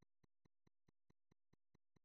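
Near silence with very faint, evenly spaced ticks, about four or five a second.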